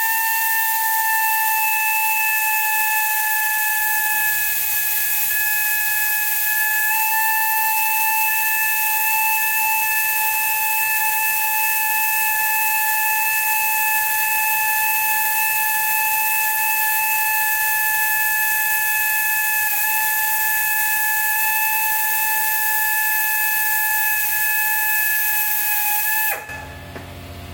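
Small high-speed power tool motor whining at a steady pitch for the whole stretch, cutting off suddenly near the end.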